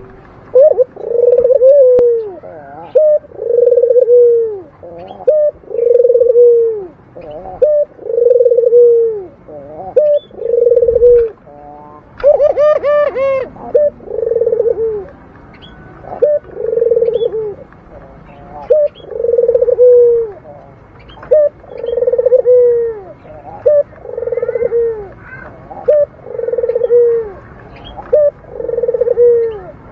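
Local puter dove, a kept collared dove, giving its repeated 'dengkur' coo: about a dozen low, rounded coos of about a second each, one every two seconds or so. A brief, higher call breaks in about twelve seconds in.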